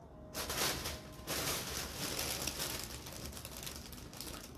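Rustling and handling noise close to the microphone, rising and falling unevenly, as a paper message card and its gift packaging are moved about and picked up.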